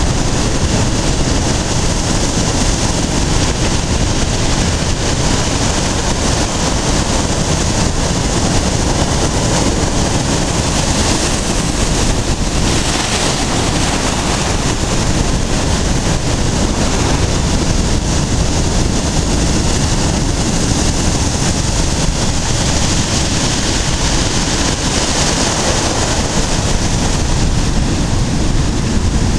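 Rough storm sea breaking and washing up a sandy beach, a loud, steady rush of surf with wind noise on the microphone.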